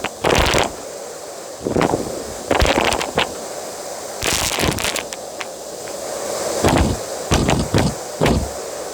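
Vacuum cleaner running on a bed, with irregular crackling rattles as crumbs and small debris are sucked up the nozzle, about eight bursts.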